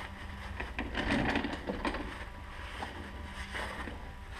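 A cloth rag rubbing over the metal gasket surface of the rear differential housing, wiping off oil before the cover is refitted, with scuffs and light knocks and a steady low hum underneath.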